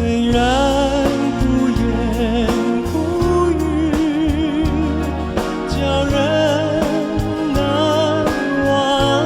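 Slow ballad music: a lead melody with wide vibrato over sustained bass notes, with no sung words.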